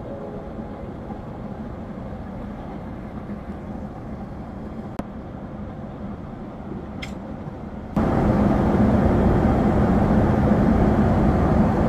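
Steady cabin noise of a Boeing 767-400 airliner in cruise: a constant rush of engines and airflow. About 8 s in it steps up abruptly to a much louder level.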